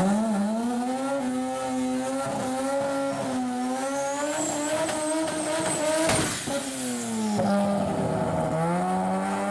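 Turbocharged 13B twin-rotor Mazda rotary engine in a Mk1 Ford Escort drag car, revving high and held near one pitch with small wavers. About six seconds in the revs drop sharply, then climb again near the end.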